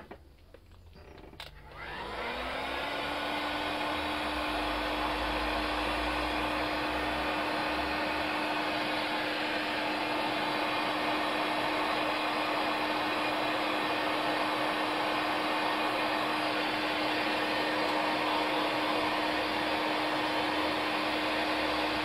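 Handheld electric heat gun switching on about two seconds in, its motor spinning up in a rising whine, then running steadily: a rush of blowing air with a steady hum, shrinking heat-shrink tubing over a connector.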